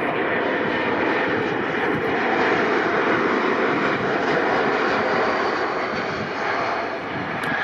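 Airbus A220-300's Pratt & Whitney PW1500G geared turbofans running as the airliner comes in to land, a steady jet rush with a faint high whine dropping in pitch midway.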